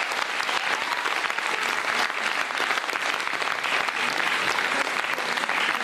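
Studio audience applauding steadily, a dense patter of many hands clapping, welcoming a guest.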